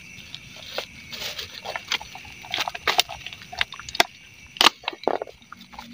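Irregular sharp clicks, taps and rustles of a hand handling small objects among dry leaves and a cloth on the ground, with the loudest clicks a little past the middle.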